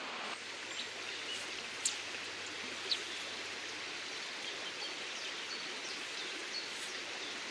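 River water flowing past, a steady, even rush, with a couple of faint sharp clicks about two and three seconds in.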